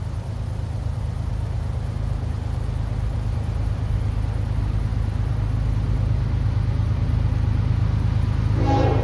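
Approaching diesel freight locomotive: a low rumble that grows slowly louder, and near the end its horn starts to sound.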